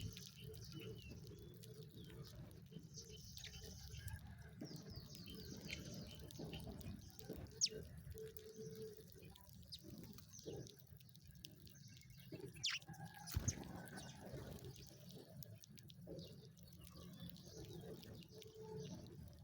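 Sparrows chirping softly, many short high chirps overlapping throughout, with a few sharp clicks and a low background rumble.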